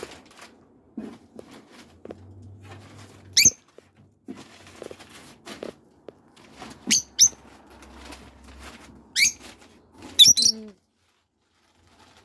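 Faint rustling from parts and packaging being handled, broken by about six short, sharp high squeaks, the loudest cluster near the end.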